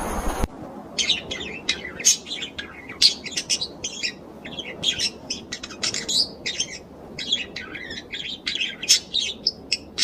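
Small birds chirping in a busy, rapid series of short, high calls, with a few louder chirps standing out.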